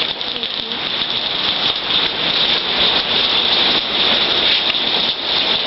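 Heavy rain falling, a steady dense hiss of drops on surfaces.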